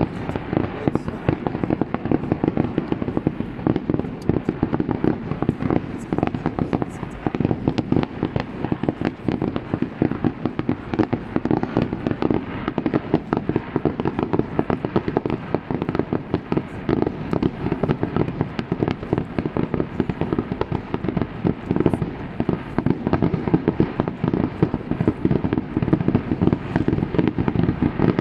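Aerial fireworks going off in a dense, continuous barrage of rapid bangs and crackles, many shots a second with no pause.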